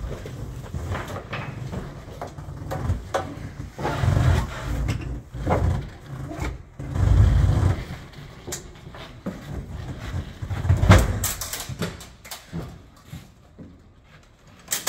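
Irregular clunks, knocks and low rumbling thumps in a van's metal load area as a heavy Harley-Davidson touring motorcycle is manoeuvred toward the rear ramp, its engine not running. The heaviest thumps come about halfway through and again a few seconds later.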